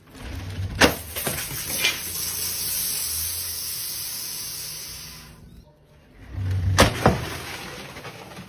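A large plastic soda bottle knocks down off a wooden ramp and rolls away across rough concrete, a rushing, rumbling roll that fades out after about five seconds. Two more sharp knocks come near the end.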